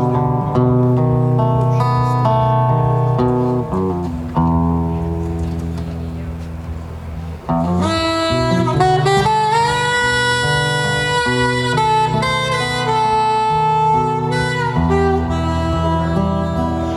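Live band music: guitar chords over a bass line, easing off a little, then a saxophone melody coming in about halfway through with long held notes that slide between pitches.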